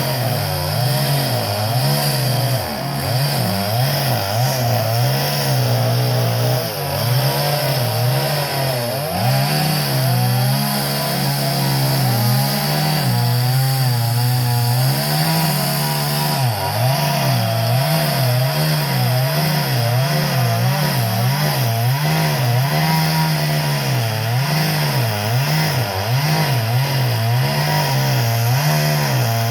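Chainsaw engine running continuously through wood during tree felling, its pitch wavering up and down as the load on the chain changes.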